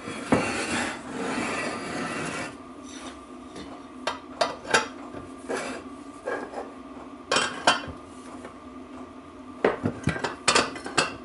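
Large spanners clinking and scraping against a differential casing on a workbench as wrenches are fitted to the pinion nut. A couple of seconds of scraping come first, then scattered sharp metal clinks.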